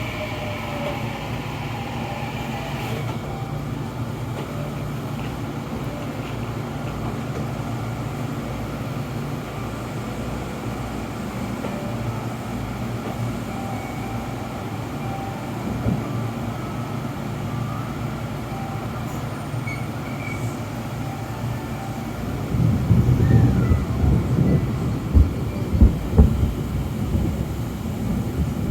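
Kintetsu Shimakaze electric express train running slowly into a station, with a steady low rumble and faint wheel squeal. Near the end, a louder low rumbling with several heavy thumps comes in.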